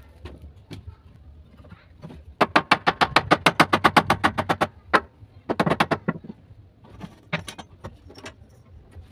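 Hammer tapping rapidly on a wooden bench rail: a fast run of light blows, about nine a second, lasting a couple of seconds. A shorter run follows about a second later, then a few single taps.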